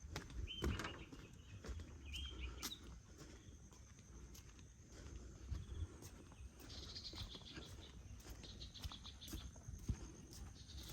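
Outdoor nature ambience: birds giving a couple of short chirps early, then a quick high twittering run in the middle, over a steady faint high insect drone, with scattered clicks and a low rumble.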